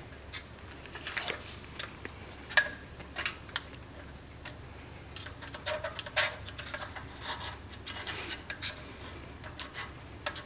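Scattered light metallic clicks and scrapes of a hand tool working at a truck's front hub and its toothed washer, with a sharper click about two and a half seconds in.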